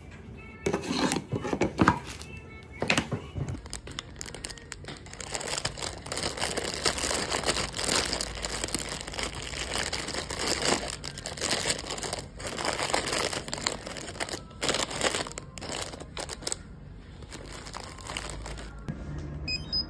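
Cellophane and plastic bags crinkling as a hand rummages through bagged accessories in a wicker basket, with background music. The crinkling is densest through the middle and fades near the end.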